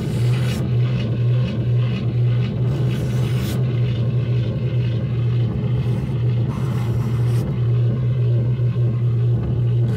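Amplified painting: scraping swishes of a brush or tool on a contact-miked surface, a few times, over a steady low hum.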